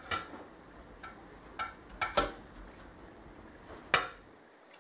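A metal utensil clinking against a stainless steel roasting pot while roast chicken and potatoes are lifted out: a handful of sharp, scattered clinks, the loudest near the end.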